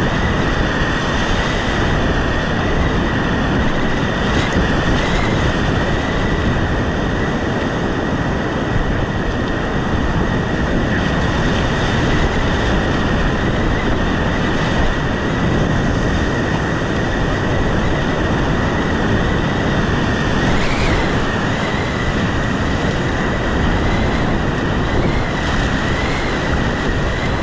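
Rushing whitewater of a river rapid: a loud, steady rush of water noise close to the microphone, with no break.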